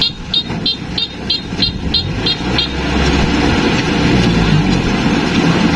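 A combine harvester running steadily, with a rapid electronic warning beep sounding about nine times, roughly three a second, over the first two and a half seconds before the machine carries on alone.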